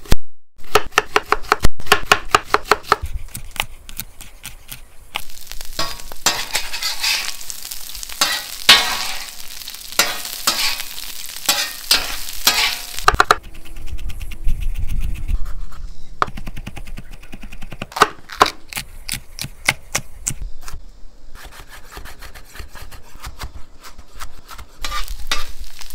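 Chef's knife chopping on a wooden cutting board, a run of sharp regular knocks; through the middle, cubed pork belly sizzles on a flat-top griddle as a metal spatula scrapes and turns it. In the second half, the quicker chopping of green onions on the board.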